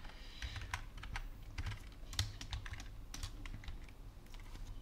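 Typing on a computer keyboard: a run of irregularly spaced keystroke clicks.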